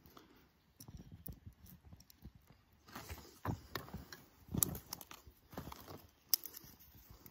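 Split wooden kindling sticks knocking and clacking together as they are handled and leaned into a teepee fire lay, in irregular knocks, the loudest about four and a half seconds in.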